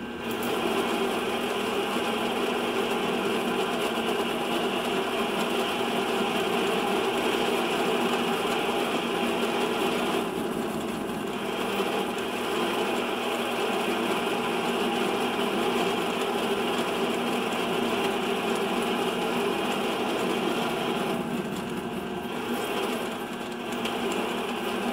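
MX210V mini lathe running while a parting tool cuts into a workpiece spinning in an ER32 collet chuck: a steady motor and spindle hum with cutting noise over it. The higher cutting noise eases briefly twice, about ten seconds in and again around twenty-two seconds.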